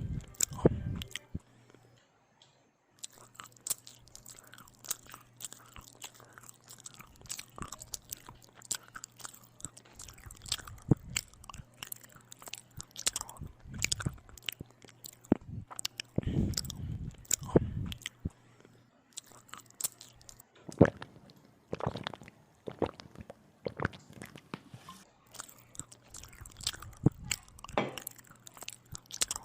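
Close-up chewing and biting of a bread sandwich with ham and tomato: irregular crunches, clicks and wet mouth sounds, pausing briefly about two seconds in.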